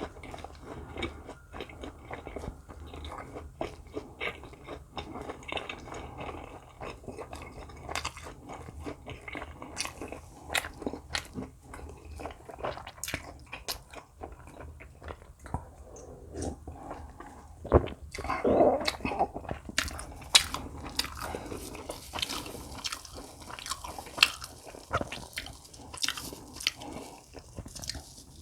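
Close-miked eating sounds: a person biting and chewing food, a steady run of small crunches and mouth clicks, louder for a few seconds about two-thirds of the way through.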